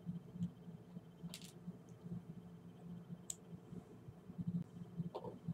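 A few faint, sharp clicks and a brief rustle of small parts being handled, over a low steady hum.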